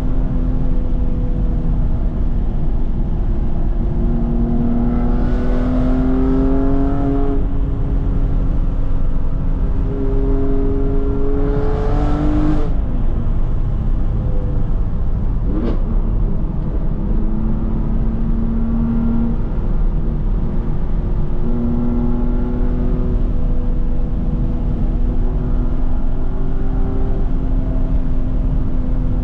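BMW F80 M3's twin-turbo inline-six running through an M Performance exhaust with the secondary cats deleted, cruising along a winding road. The pitch rises in two pulls, about five and eleven seconds in, and one sharp crack comes about halfway through.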